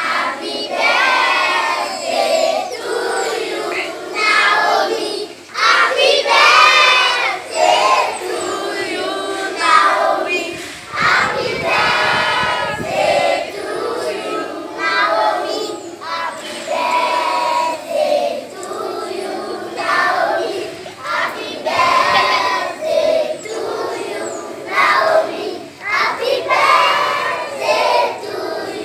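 A large group of young schoolchildren singing together in unison, phrase after phrase.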